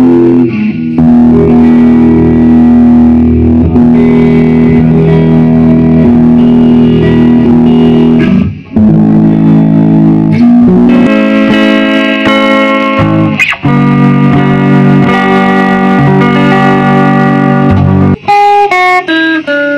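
Electric guitar with single-coil pickups played through a tube guitar amplifier: ringing chords and melody lines, with a couple of brief breaks and quicker picked notes near the end.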